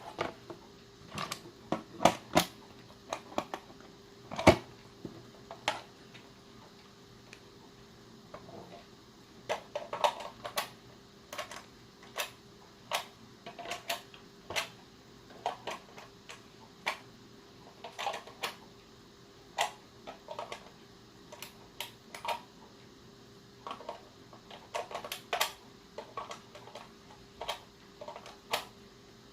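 Irregular sharp clicks, taps and knocks from a plastic power strip and its cord being handled, sometimes several a second, over a faint steady hum.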